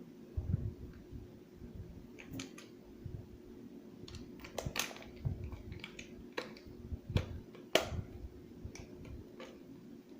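Irregular small clicks and knocks of a Phillips screwdriver and hands working on the plastic back cover of an animatronic figure, driving in its last screw. A faint steady hum runs underneath.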